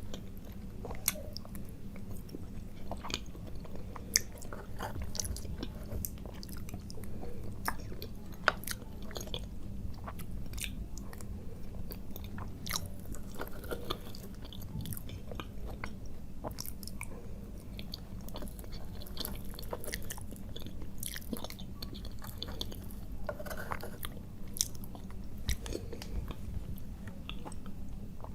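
A person chewing food with the mouth close to the microphone: an irregular, continuous run of wet mouth clicks and smacks, with a few sharper, louder clicks.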